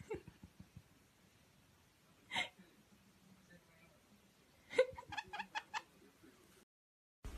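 A voice giggling: one short giggle about two and a half seconds in, then a quick run of five or six giggles, about five a second, near the end. A few faint low thumps at the very start.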